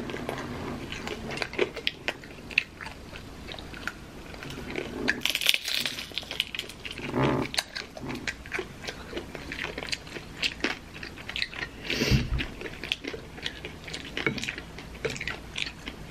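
Two people biting into and chewing fried taquitos close to the microphone, with many sharp crunches and mouth sounds.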